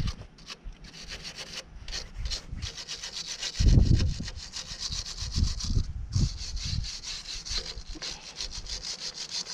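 Hand wire brush scrubbing rusty steel on an old Ferguson potato ridger's frame in quick back-and-forth scraping strokes, taking off surface rust. A few dull low thumps come in between, the loudest about four seconds in.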